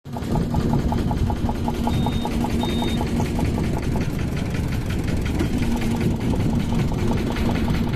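Engine of a wooden river boat running steadily under way, a dense low drone with a fast, regular beat.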